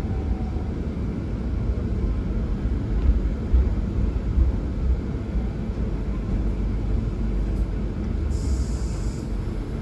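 Interior running noise of a PESA EN97 electric multiple unit under way: a steady low rumble of wheels on rails and running gear. A brief hiss comes in about eight seconds in.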